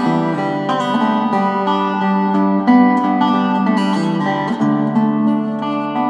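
Background music: an instrumental passage on plucked acoustic guitar, with no singing.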